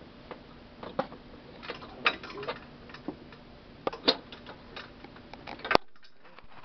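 Scattered light clicks and taps of hands handling cables and connectors at the back of an electronics instrument. A sharp click comes near the end, after which the sound cuts out almost completely.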